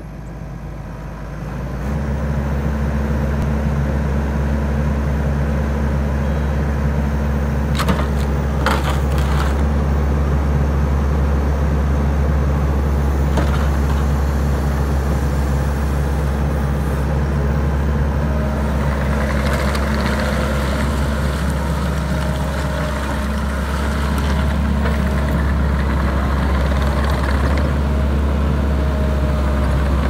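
Kubota SVL75 compact track loader's four-cylinder turbo diesel engine running at a steady speed, swelling in over the first two seconds and then holding an even pitch while the machine drives on its tracks. A few sharp knocks sound about eight and thirteen seconds in.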